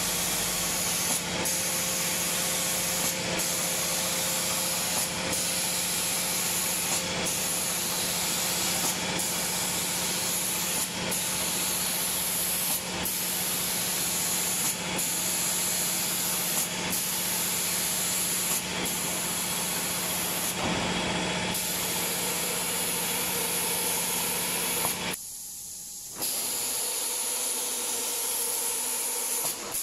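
Automatic door spray-painting machine's spray gun hissing steadily as it atomizes paint with compressed air, the hiss breaking off briefly about every two seconds, over a steady machine hum. Near the end the sound drops away for about a second.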